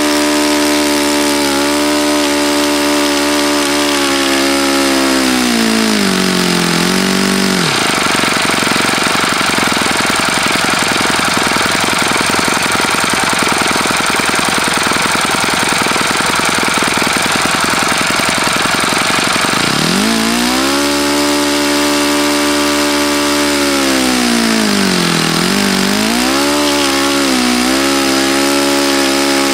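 OS FS-48 Surpass four-stroke model glow engine turning a propeller on a test stand, an engine whose bearings are bad. It runs fast, is throttled down to idle about seven seconds in and idles with distinct firing beats. About twenty seconds in it is revved back up, dipping briefly once before climbing again.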